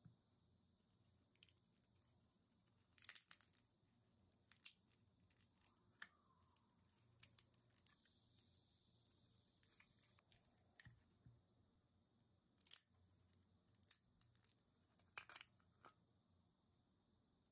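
Faint, scattered crackles and crinkles of a thin skin of cured resin being pried and peeled out of plastic mixing cups with a wooden stick.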